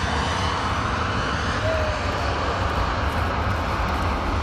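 Engines of a Lufthansa Airbus A380 (four Rolls-Royce Trent 900 turbofans) running steadily at approach power as the airliner descends on short final toward landing.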